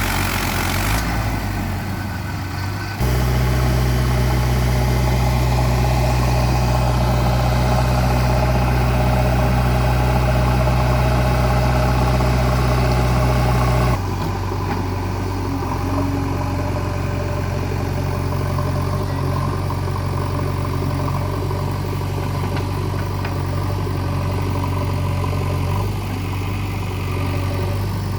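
Heavy diesel engines of a tractor and backhoe loader running steadily at a low, even engine note. The note and loudness change suddenly about 3 seconds in, about halfway through, and again near the end: louder and deeper in the first stretch, then lighter.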